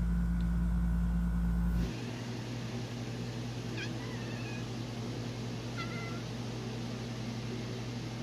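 Cat chirping at birds: two short high chirps about two seconds apart, each a quick swoop ending in a brief held note. Under them runs a steady low hum, which is loud at first and drops suddenly about two seconds in.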